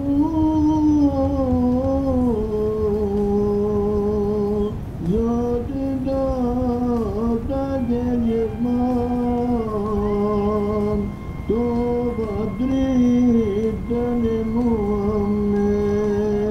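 A solo voice sings an ilahi, a Turkish Sufi hymn, in three long phrases of held, wavering notes that slide between pitches, with short breaths about five and eleven seconds in.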